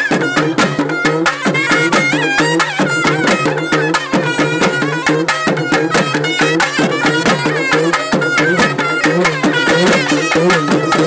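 A street folk band plays a fast traditional tune: long, bell-ended metal wind pipes carry a reedy melody over rapid, steady drumming.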